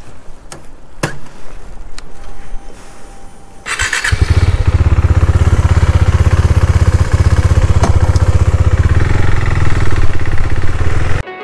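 A few light clicks, then about four seconds in a KTM Duke 390's single-cylinder engine starts and settles into a steady idle.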